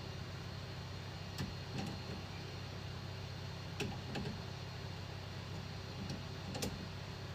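Steady low hum with a handful of light clicks and knocks spread through it, about five or six in all.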